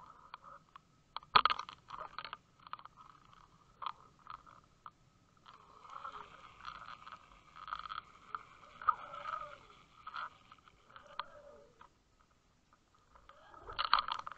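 Underwater camera rig dragging and bumping along a sandy bottom: irregular scraping, crunching and clicking, with a loud scrape about a second in and another near the end.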